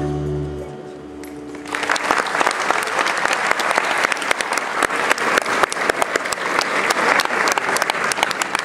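The last held chord of a song fades out, then an audience breaks into applause about two seconds in and keeps clapping steadily.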